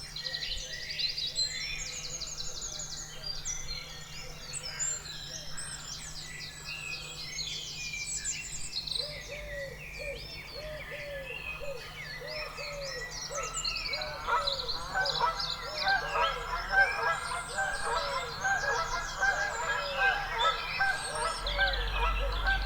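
Several songbirds singing together, with many overlapping high trills and chirps. From about nine seconds in, a lower call repeated two to three times a second joins them and grows louder.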